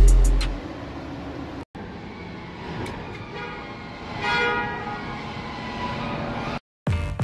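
Background music fading out, then a paint spray booth's air handling running with a steady rush as the booth is switched to its bake cycle. A brief horn-like tone with overtones swells about four and a half seconds in.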